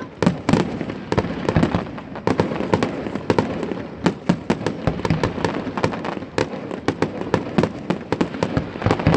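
Fireworks display: a dense, irregular run of sharp bangs and crackles, several a second, over a continuous din of overlapping explosions.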